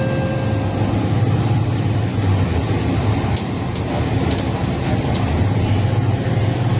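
Inside a moving city bus: steady low engine drone and road noise, with a few sharp high clicks or rattles about halfway through.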